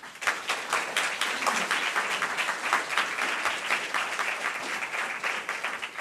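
Audience applauding, dense clapping that begins at once and starts to die down near the end.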